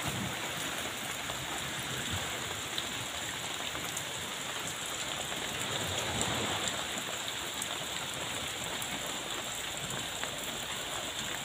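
Rain falling steadily: an even hiss with faint scattered drop ticks.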